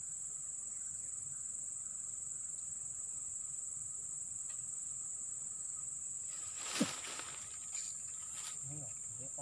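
Steady high-pitched chorus of insects in tropical riverside forest. About seven seconds in, a brief louder sound with a falling pitch cuts across it.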